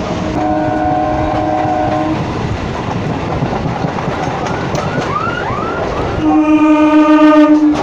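Electric local train running with its doors open, wheels rumbling on the track; a train horn sounds for about two seconds near the start, and a louder, longer horn blast fills the last second and a half as an oncoming electric local train draws near on the next track.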